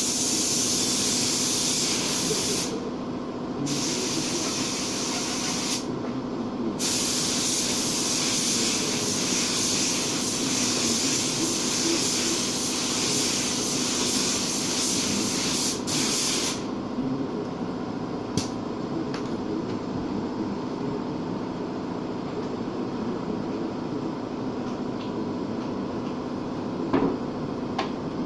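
Compressed-air paint spray gun hissing in long passes, released briefly three times and then stopping about two-thirds of the way in, over a steady machine hum, while blending paint on a car fender.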